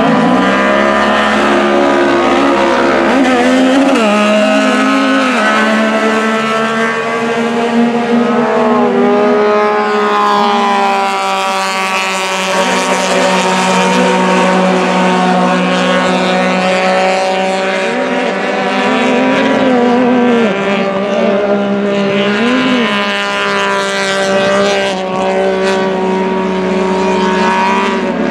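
A pack of UTV race engines rising and falling in pitch as the side-by-sides accelerate and lift off the throttle around the dirt course, several engines overlapping.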